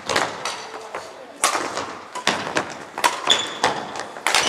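Badminton rackets striking a shuttlecock in a rally: repeated sharp cracks, each ringing briefly around a large hall, with voices from the other courts behind.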